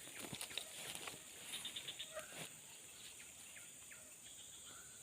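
Faint outdoor ambience: a steady high-pitched insect drone, with scattered small clicks and taps during the first two seconds or so.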